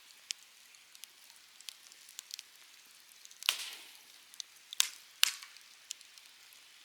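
Wood campfire crackling: scattered small ticks over a faint hiss, with three louder pops in the second half, the first about halfway through.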